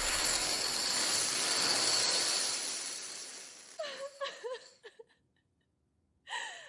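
A hissing rush of noise that fades out over about four seconds, followed by a few short, high giggles.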